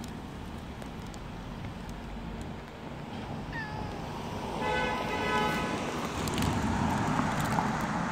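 Tuxedo cat meowing: a short, high, falling meow about three and a half seconds in and another at the very end. In between, a steady flat tone lasts about a second, over street background noise that grows louder in the second half.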